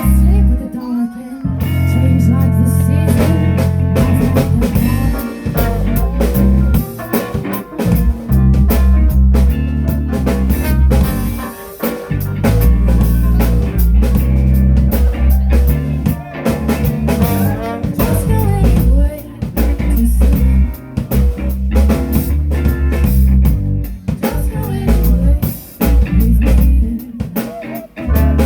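A band playing a blues-rock song: drum kit, guitar and deep bass notes.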